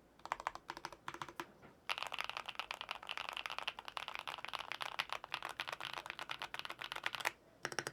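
Typing on a LUMINKEY98 98% mechanical keyboard with an aluminium case, LUMINKEY linear switches and PBT dye-sublimated keycaps: a few short bursts of keystrokes, then fast continuous typing from about two seconds in, pausing briefly near the end.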